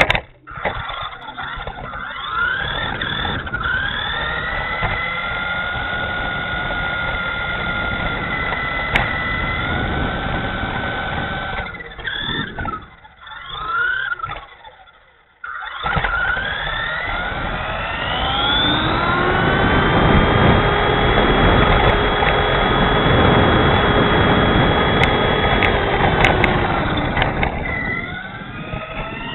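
Dromida SC4.18 RC short course truck's 370 brushed electric motor and drivetrain whining, rising in pitch as it speeds up and then holding steady at speed, over road rumble from the tyres. A little past halfway the sound falls away and briefly drops out, then the whine climbs again and runs loud and steady.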